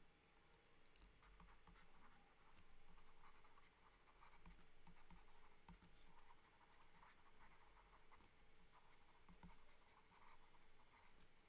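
Faint scratching of a stylus writing by hand on a tablet, in short irregular strokes.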